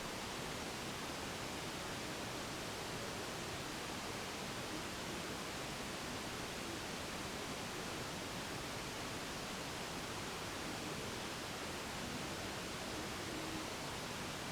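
Steady hiss of quiet room tone, with a few faint brief tones now and then and no knocks or thuds.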